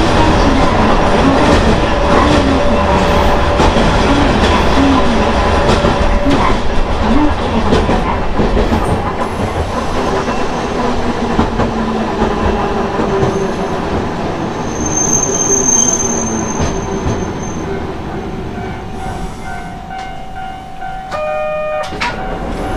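Hankai Tramway Mo 351-type tram running on its nose-suspended (tsurikake) traction motors, with the motor growl and wheels on the rails heard from the front of the car. A brief high wheel squeal comes around the middle, and the running noise gets quieter over the last few seconds.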